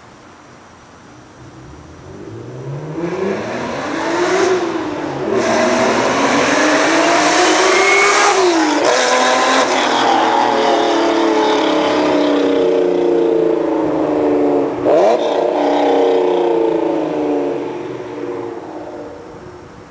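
Supercharged Honda NSX V6 with a GTone F1 V5.1 aftermarket exhaust accelerating hard from a launch: the engine note climbs in pitch, drops at a gear change about four and a half seconds in, climbs again, and drops at a second shift near nine seconds. It then runs steadier with a quick rev spike near fifteen seconds, and fades away near the end.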